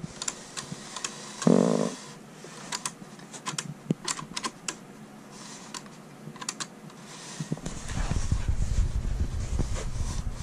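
Plastic gears of a 3D-printed PLA three-axis tourbillon clicking irregularly as the mechanism is turned by hand. A short loud buzz comes about a second and a half in, and a low rumble joins in the last few seconds.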